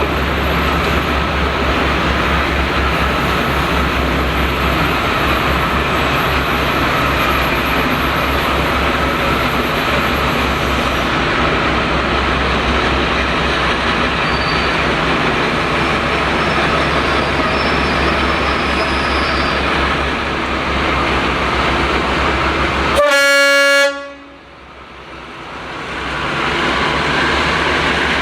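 Train running with a steady heavy rumble, then a single short horn blast near the end, after which the sound drops away abruptly and slowly returns.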